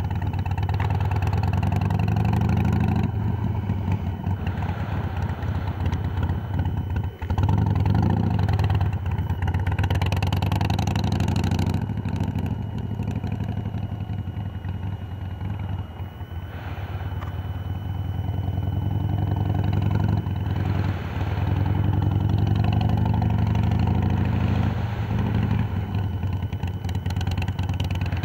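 2005 Harley-Davidson Sportster's air-cooled V-twin running through Screamin' Eagle II exhaust pipes with Big City Thunder "Thunder Monster" baffles. The engine speed rises and falls repeatedly as the bike is ridden around a cornering course, with a brief sharp drop about seven seconds in.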